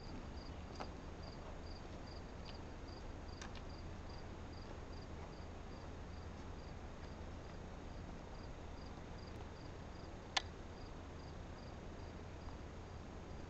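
A cricket chirping in short regular pulses, about three a second, over a low steady rumble, with one sharp click about ten seconds in.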